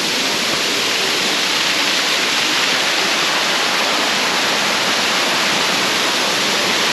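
Waterfall pouring: a steady, loud rush of falling water that does not change.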